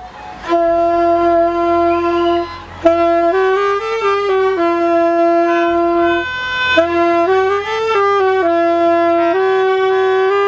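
Background music: a solo wind instrument playing a slow melody of long held notes, with short runs up and down between them.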